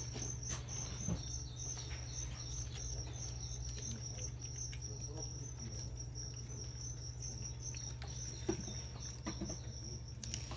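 Feeder crickets chirping: a continuous, slightly wavering high trill, over a low steady hum.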